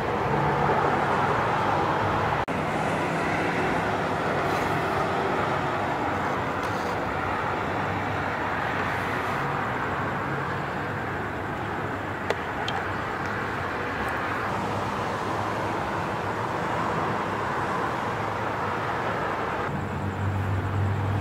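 Steady rush of freeway traffic with a faint low hum, and one sharp click about twelve seconds in.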